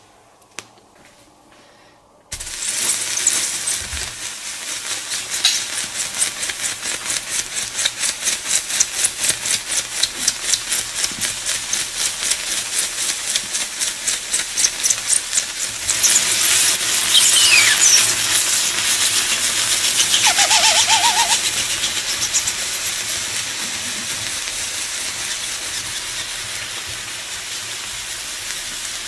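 A red-hot metal ball sizzling on wet watermelon flesh, the juice boiling off as hissing steam. The hiss starts suddenly about two seconds in and pulses rapidly at first, about three to four times a second. It then grows louder with a few squealing whistles midway before settling to a steady hiss.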